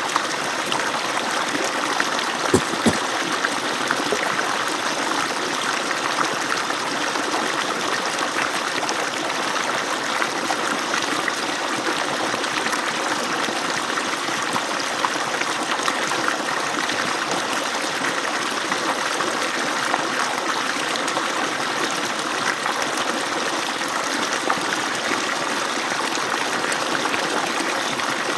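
Water pouring steadily from an agricultural pump's outlet, an even rush of falling water with a couple of brief splashy ticks a few seconds in.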